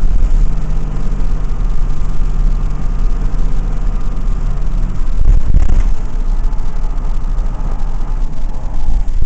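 Blue Bird All American school bus's 5.9 Cummins straight-six diesel running under way, heard from inside the bus. A brief loud clatter comes about five and a half seconds in.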